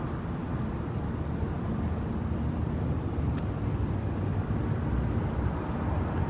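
Steady low rumble of outdoor background noise, with one faint click about three and a half seconds in.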